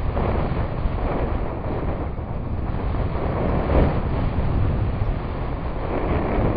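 Wind rushing over the camera microphone of a paraglider in flight: a steady low rumble of wind noise that swells and eases a little.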